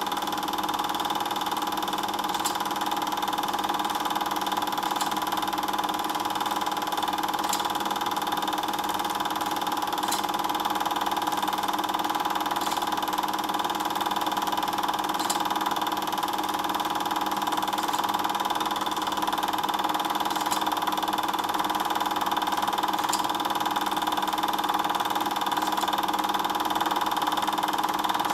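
A steady machine-like hum, unchanging in pitch and level, with a faint tick about every two and a half seconds.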